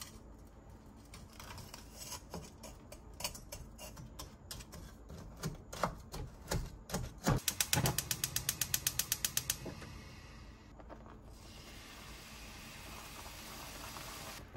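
Scattered kitchen clicks and taps, then a gas stove's igniter ticking fast and evenly, about nine clicks a second for about two seconds, followed by the steady hiss of the lit burner.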